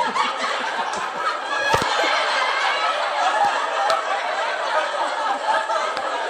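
A crowd laughing, as from a sitcom laugh track, starting abruptly and going on steadily.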